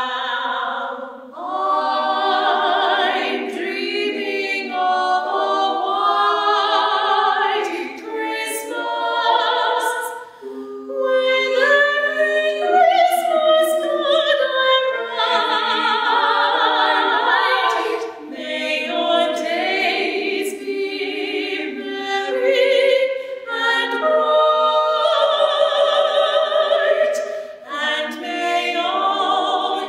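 Three women's voices singing a cappella in three-part close harmony, with short breaks between phrases.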